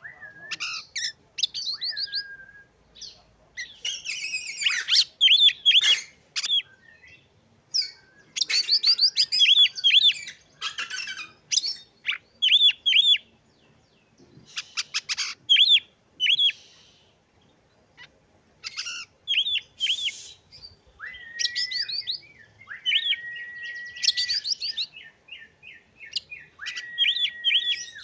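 Oriental magpie-robin in full song: bursts of fast, repeated chattering notes and trills, broken by several long steady whistles in the second half. It is the vigorous kind of song played as a lure to set other magpie-robins singing.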